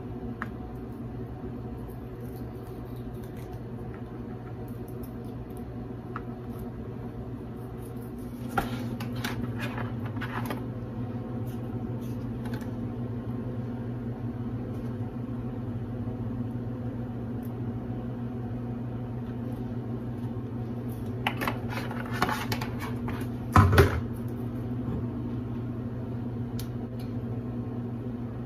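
Steady electrical hum of a running kitchen appliance or fan. Two spells of short clicks and rattles from utensils and containers being handled come about a third of the way in and again near the end, and a single knock near the end is the loudest sound.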